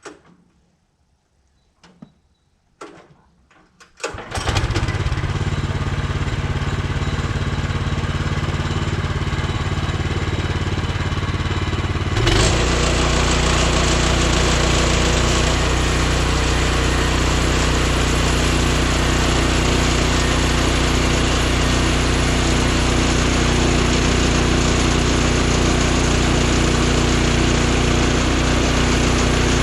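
The portable bandsaw mill's gasoline engine is started about four seconds in, after a few light knocks, and runs steadily. About eight seconds later it steps up to a louder, fuller running that holds steady.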